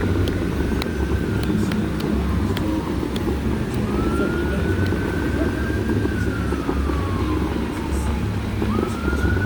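An emergency-vehicle siren wailing over a steady low rumble of traffic: its tone rises, holds, slowly falls, and sweeps up again near the end.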